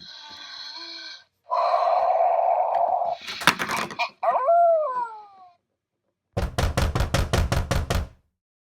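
Electronic sound effects from the Mega Bloks Three Little Pigs playset's toy speaker: a buzzy tone, a hissing rush and a crash, then a howl about halfway through. Near the end comes a fast run of about ten knocks.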